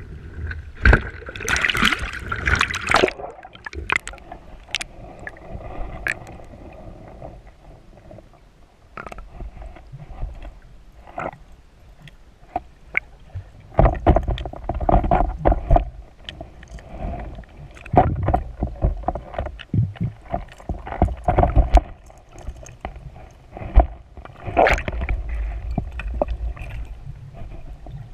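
Water splashing at the surface for the first few seconds as the diver goes under. After that, muffled underwater swishing and knocks from water rushing past the camera, coming in irregular bursts.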